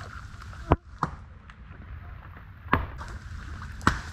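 Axe chopping into a small tree trunk: four sharp, unevenly spaced strikes, the second one lighter. Swamp water sloshes faintly around the chopper's legs between blows.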